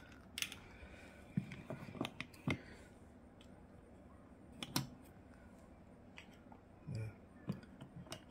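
Light, scattered clicks and taps of eyeglass frames and fingers against the divided compartments of a velvet-lined glasses storage box as pairs of glasses are set into their slots.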